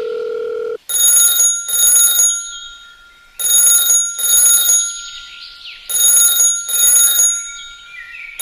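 Telephone ringing in a double-ring pattern: three pairs of short rings, one pair about every two and a half seconds. Before the first ring, a steady dial tone runs briefly, then cuts off.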